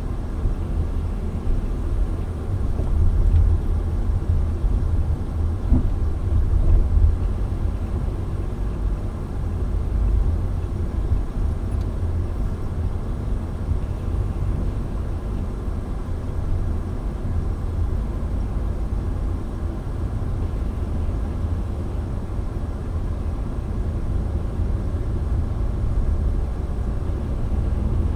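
Steady low rumble of a car being driven, with road and engine noise heard from inside the moving car.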